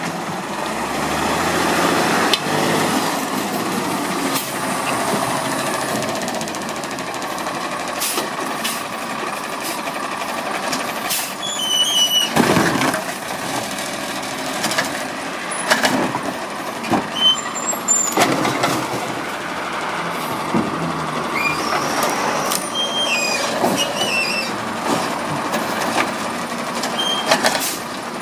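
Garbage truck running steadily, with repeated metallic knocks and clanks and several short high squeaks.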